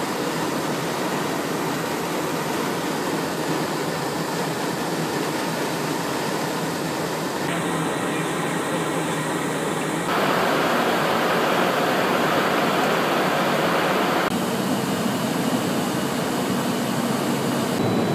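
Steady rush of heavy rain and wind on a parked Cessna Citation Encore, heard from inside the cockpit. About ten seconds in it gives way to a louder, steady rush of the jet in flight: airflow and engines heard from the cabin.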